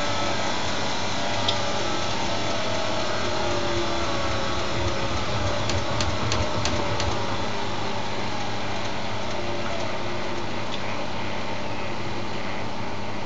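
Siemens Siwamat iQ washing machine running: a steady motor hum with a whine that falls slowly in pitch over the first few seconds, and a short run of clicks about six seconds in.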